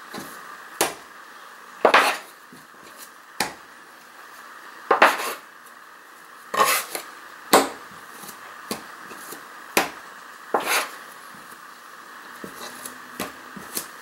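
Metal bench scraper knocking and scraping on a kitchen countertop as it cuts pizza dough into pieces: a dozen or so sharp knocks and short scrapes at irregular intervals.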